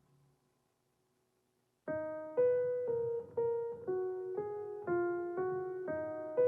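Background music: after nearly two seconds of silence, a keyboard melody begins, one note roughly every half second.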